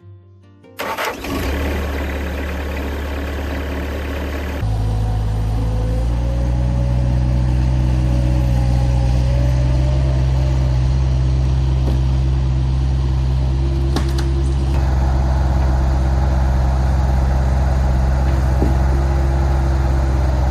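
Engine of a Norwood LM30 portable sawmill running, starting about a second in and stepping up to a louder, higher speed about four and a half seconds in, then holding steady.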